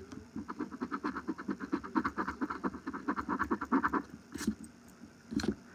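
Coin scratching the latex coating off a paper scratch-off lottery ticket in quick back-and-forth strokes that stop about four seconds in, followed by two brief clicks.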